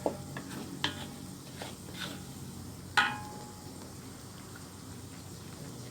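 A cooking utensil knocking and scraping against a pot while fish-curry spice paste is stirred, with a loud ringing clank about three seconds in. After that comes a steady low sizzling simmer as the paste cooks until it bubbles and thickens, before the coconut milk goes in.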